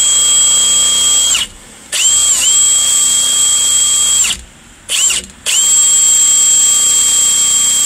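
Power drill running at high speed as it bores into an Abus mini U-lock to drill the locked lock out. It runs in bursts with a steady high whine. It stops about a second and a half in and starts again with a brief dip in pitch. It stops again a little past the middle, gives a short burst, then runs on.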